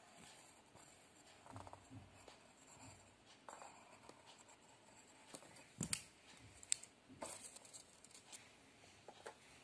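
Faint pencil scratching on paper as a shape is traced, with soft rustling and a few sharp clicks from handling the paper, loudest a little past the middle. Near the end, scissors start cutting the paper.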